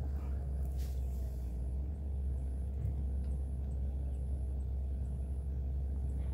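Steady low rumble with a faint, even hum over it.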